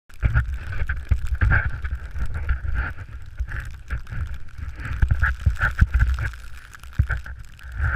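Wind buffeting an action camera's microphone in uneven low gusts, with the rush of snow, during a descent through deep powder.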